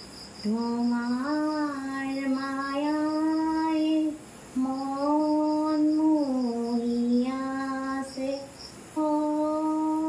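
Slow, unaccompanied singing in a high voice: long held, gliding notes in phrases of three to four seconds, broken by short pauses for breath. A faint, fast, high ticking pulse runs underneath in places.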